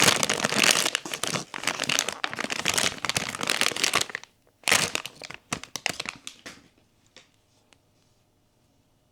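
Crinkling of a blind box's packaging wrapper being handled and opened, dense for about four seconds, then another burst after a brief pause, ending in a few faint taps and near quiet.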